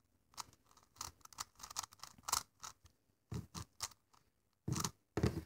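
Megaminx faces being turned quickly through an algorithm: an irregular run of short plastic clicks and scrapes in quick clusters, with brief pauses between groups of turns.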